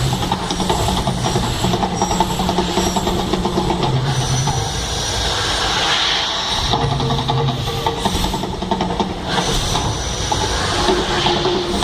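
Staged volcano eruption attraction rumbling and hissing steadily.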